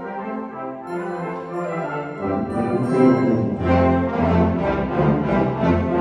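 Brass band playing a sustained passage that grows louder, with low bass notes coming in about two seconds in and the full band swelling from about three seconds on.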